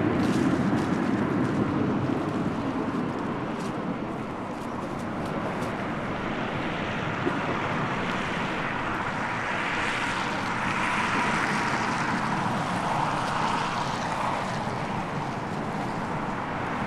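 Road traffic on a city street: a steady rush of car tyres and engines going by, swelling a little about ten seconds in as a vehicle passes.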